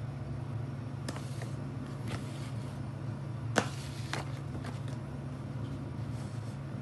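A steady low hum with a handful of light knocks or clicks, the sharpest one about three and a half seconds in.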